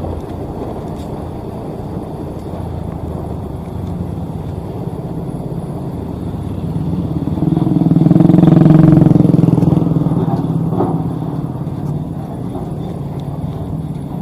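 Engine of a Sakai asphalt paver running steadily as it travels, with a louder engine sound swelling up about halfway through and fading again as a vehicle passes close by.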